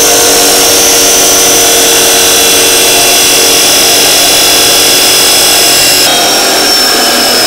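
Abrasive chop saw cutting through steel angle iron: a loud, continuous grinding screech with steady whining tones over it. About six seconds in, the pitch of the tones shifts as the cut goes on.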